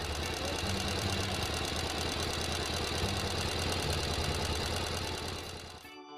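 Car engine running steadily with a rapid, even pulse, fading out near the end.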